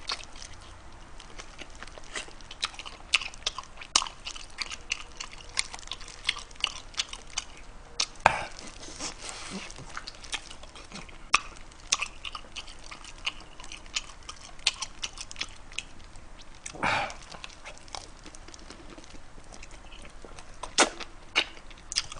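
Close-miked chewing and lip-smacking of a person eating spicy pork trotters, a steady scatter of short wet clicks, with two longer, louder sounds about 8 and 17 seconds in.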